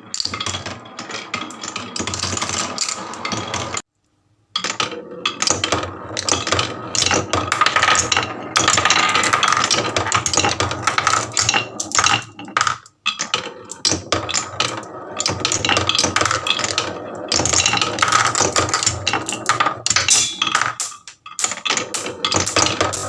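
Many marbles rolling and clattering down a wooden HABA marble run, a dense stream of irregular clicks and knocks. The sound breaks off completely for about half a second about four seconds in.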